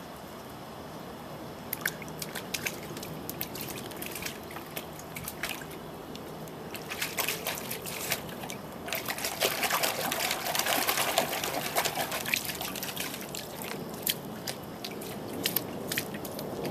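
Water running from a garden hose into a shallow plastic tub, with a Welsh Terrier splashing and sloshing in the water. The splashing is loudest and thickest through the middle, with scattered short splashes before and after.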